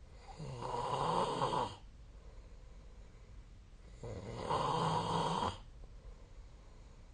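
A sleeping person snoring: two long snores about four seconds apart, each lasting about a second and a half, with a low buzzing drone under a rough breathy noise.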